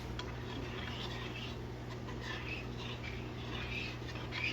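Spoon stirring and scraping in a small bowl, mixing icing, in soft irregular scratches over a steady low hum.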